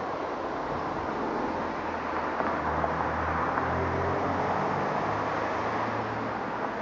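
Steady road traffic noise, with a passing vehicle's engine hum swelling through the middle and easing off near the end.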